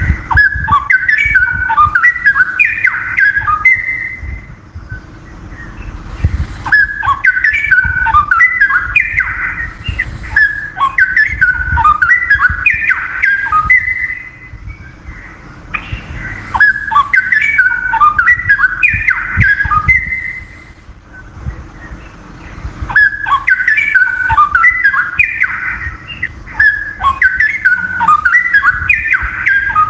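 Straw-headed bulbul (cucak rowo) singing loud, bubbling warbled phrases several seconds long, separated by short pauses. A faint steady hum runs underneath.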